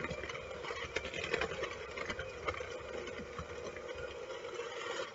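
Electric mixer running steadily, beating softened butter to cream it for buttercream frosting, with a rattle of the beaters in the bowl; it cuts off just before the end.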